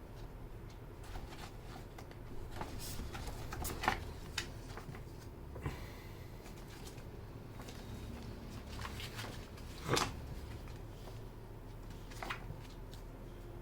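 Scattered single clicks and light rattles from a Skyloong SK61 mechanical keyboard being handled and pressed, a second or more apart, with two sharper clicks about 4 and 10 seconds in, over a low steady hum.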